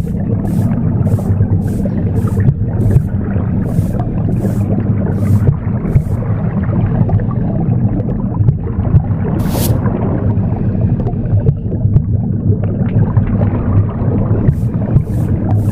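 Womb sound, a steady low whooshing rumble, mixed with a broom sweeping in short regular strokes about two a second. The sweeping stops about a third of the way in, with a single stroke around the middle, and starts again near the end.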